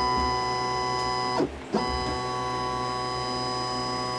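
Stepper motors of a Shapeoko Pro CNC router whining steadily as the gantry is jogged by keyboard control, starting suddenly, breaking off briefly about a second and a half in, then moving again.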